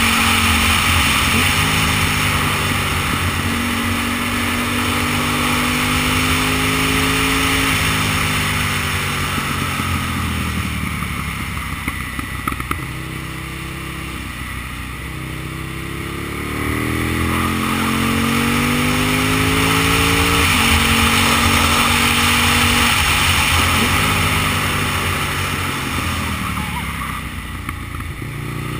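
Aprilia Tuono's 60-degree V-twin engine under way, its pitch climbing and falling with throttle and gear changes. It eases off, lower and quieter, in the middle, then pulls hard again.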